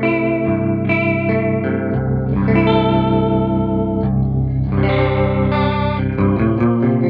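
Electric guitar played through a JHS Series 3 Rotary Chorus pedal: ringing, sustained chords with a gently wavering, shimmering pitch from the chorus modulation. The chord changes every second or two.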